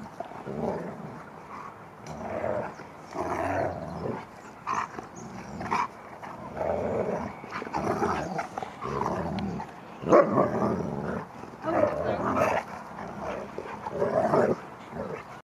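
Two huskies play-fighting, growling and grumbling at each other in a string of short bursts.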